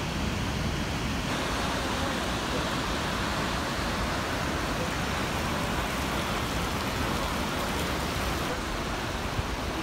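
Steady roar of a waterfall and whitewater rapids; the noise shifts slightly about a second in.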